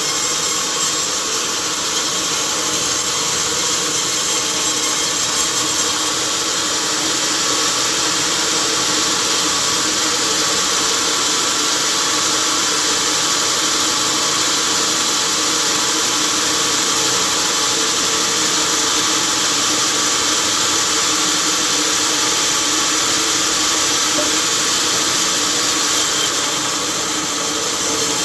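Sawmill machinery running steadily: a loud, even mechanical noise with a steady hum under it.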